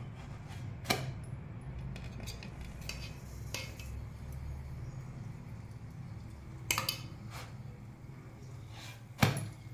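A spoon clinking a few times against a steel bowl and a nonstick frying pan while ghee is spooned onto a paratha. The loudest clink comes near the end, over a steady low hum.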